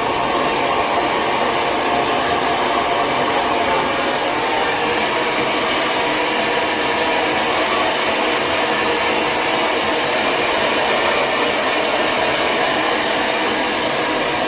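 Lange Soleil hair dryer running steadily on heat, blowing hair dry with a constant rushing whir.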